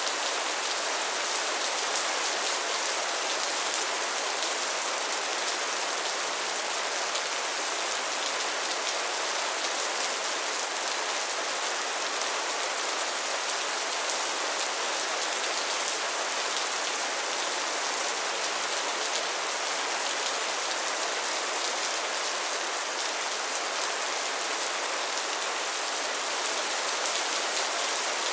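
Steady rain falling on a surface, a dense even hiss of many small drop patters without let-up.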